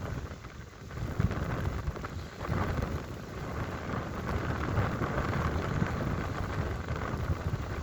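Stormy sea waves breaking and washing up a stony shore, a surging roar that builds about a second in and holds until near the end. Gusting wind rumbles on the microphone underneath.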